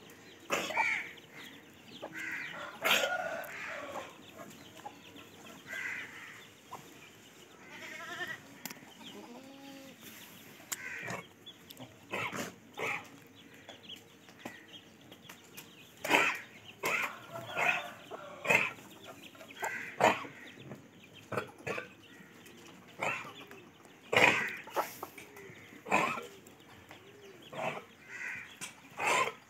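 Short farm-animal calls coming on and off, mixed with brief knocks and scuffs.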